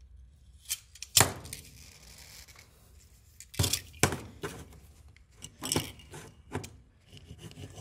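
Irregular sharp clicks and knocks of small objects being handled, the loudest about a second in.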